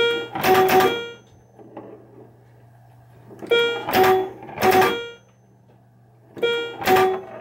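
Bally Fireball Home Edition pinball machine in play: three bursts of sharp clunks, each with ringing scoring tones, over a steady low hum.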